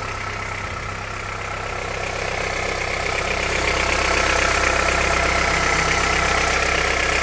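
Honda CR-V's 2.4-litre four-cylinder petrol engine running, not yet warmed up, with a fast knocking tap in its sound that grows louder a few seconds in. The owner says it sounds as if the engine were running without oil, and some take the knock for piston slap.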